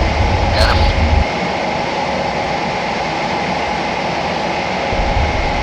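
Fighter jet engine running steadily: a continuous rushing noise with steady whine tones. The deep low rumble drops away about a second in and comes back near the end.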